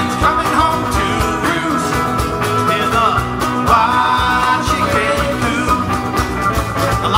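A band playing a country-rock song live: a man singing over electric guitars, including a Squier Telecaster, with a steady beat.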